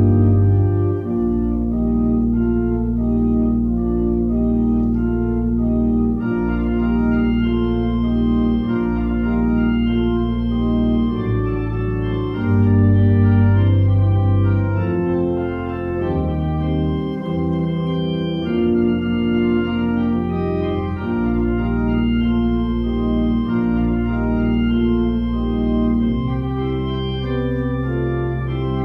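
Church organ playing slow chords over long held bass notes.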